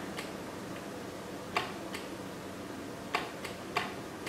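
Push-button clicks on a magnetic-loop antenna controller: the DOWN button tapped five or six times at uneven spacing, starting about a second and a half in, stepping the loop's tuning capacitor down to lower a high SWR.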